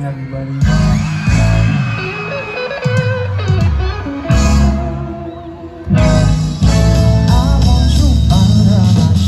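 Live band music over a festival sound system: a singer on a stand microphone, with guitar, bass and drums. The band drops back partway through, then comes back in full about six seconds in.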